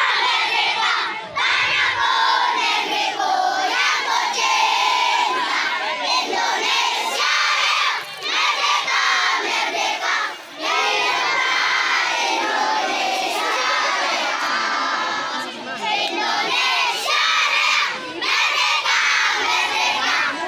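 A large group of schoolchildren singing a song together at the top of their voices, close to shouting, with a few short breaks between lines.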